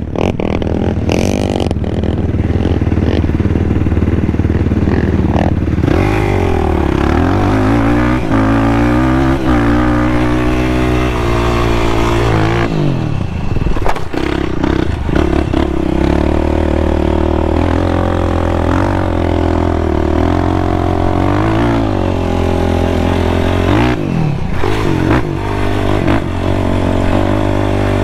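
Sport ATV engine revving up and down as the quad is ridden, its pitch rising and falling repeatedly, with a few clicks and knocks in the first couple of seconds.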